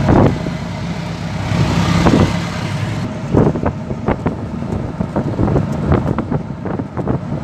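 A motor running steadily, with wind buffeting the microphone and frequent short knocks and rattles.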